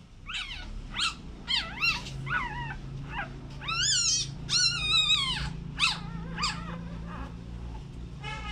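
Newborn puppy squealing in a quick series of about ten high, wavering cries, the longest about four to five seconds in, while its mother holds it in her mouth. A steady low hum runs underneath.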